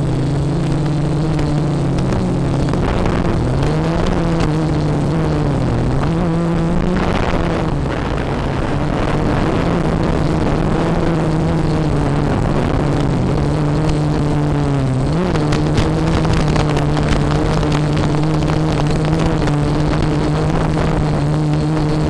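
Quadcopter motors and propellers humming steadily, heard from the onboard camera, the pitch wavering up and down as the throttle is worked, with a quick up-and-down swing about three quarters of the way through, over a constant hiss.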